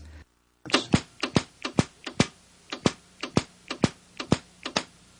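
Tesla coil sparks, about 12 to 14 inches long, striking a model building's lightning rods: a run of sharp, irregular electrical snaps, roughly three a second, starting just under a second in and stopping shortly before the end.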